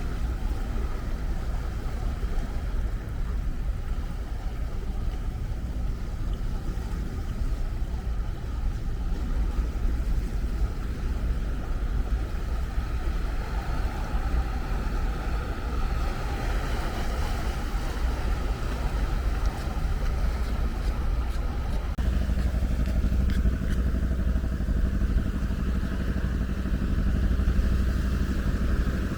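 Ocean surf as a steady, deep rumble of breaking waves, with a low hum that becomes steadier about 22 seconds in.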